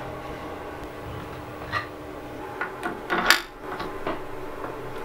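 Metal clicks and knocks of a four-way lathe toolpost being unlocked, turned and clamped by its lever handle, a handful of light clinks and one louder knock about three seconds in, over a steady hum.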